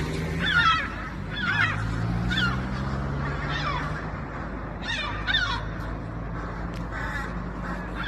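Gulls calling over and over, each call a short squawk that falls in pitch, about eight of them. A low steady hum runs underneath.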